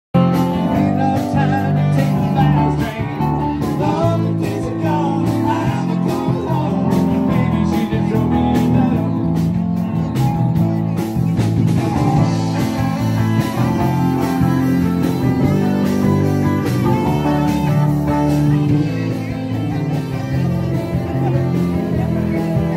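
Live band playing guitar-led blues-rock music, steady throughout.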